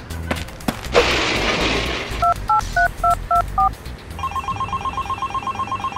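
A short hiss, then a telephone keypad dialing six numbers as separate two-tone beeps, followed by a telephone ringing in a fast, even trill.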